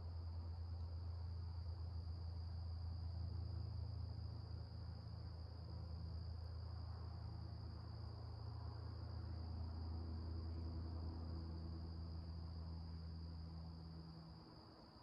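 Night chorus of crickets, a steady unbroken high trill, over a louder low hum that fades away shortly before the end.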